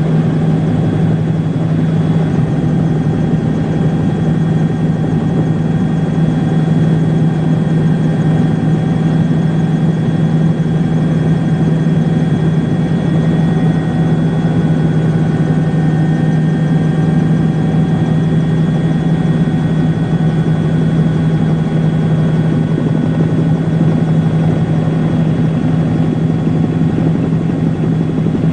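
A steady engine drone with a strong low hum and a few fixed higher tones, unbroken throughout, with no blasts or impacts.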